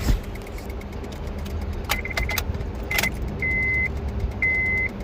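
A few sharp clicks with a jangle about two seconds in and again about a second later, then a high electronic beep about half a second long repeating once a second, from a 2008 Honda Civic with its ignition on that will not start.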